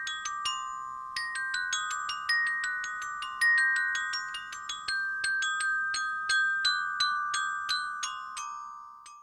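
Mapex glockenspiel's metal bars struck with mallets in a flowing melody of bright, ringing notes, about two to three strikes a second, each note ringing on under the next. The notes stop about a second before the end and the last ones ring away.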